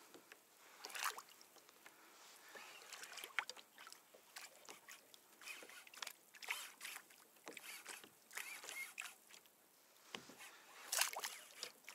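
Small waves lapping and slapping against the side of a plastic fishing kayak in light, irregular splashes.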